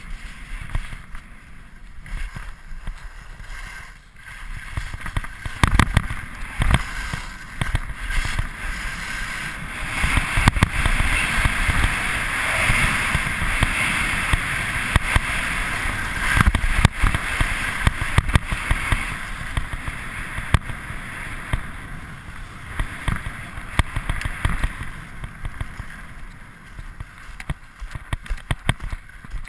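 Skis running over groomed snow: a steady hiss of the skis on the snow, mixed with wind on the helmet-camera microphone and scattered short knocks. The hiss grows louder and brighter for several seconds around the middle, then eases off, with more frequent knocks near the end as the skier slows.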